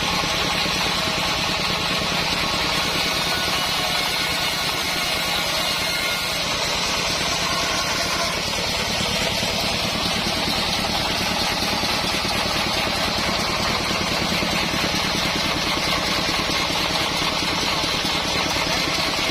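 Band sawmill running steadily: its drive engine beats at an even pace under a steady hiss.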